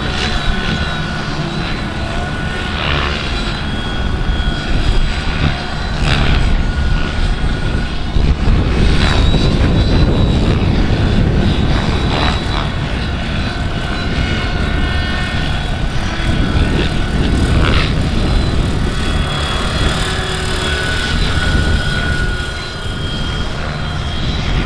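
Large-scale radio-controlled Bell 206 JetRanger model helicopter flying overhead: a thin, high whine over the sound of its rotors, half buried under heavy wind buffeting on the microphone.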